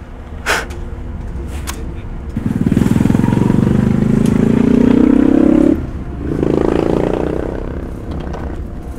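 Two short knocks, then a vehicle engine accelerating: its pitch rises steadily for about three seconds, breaks off, and picks up again more softly before fading.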